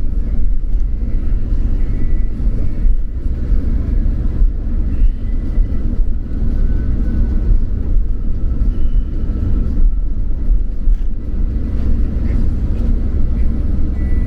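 Steady low rumble of engine and tyre noise from a van driving, heard from inside the cab.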